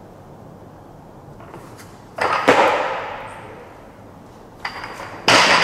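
65 kg barbell with Eleiko bumper plates clanking in a clean: a loud metallic crash that rings on about two seconds in as the bar is pulled and caught on the shoulders, a few light clicks, then a second loud crash near the end.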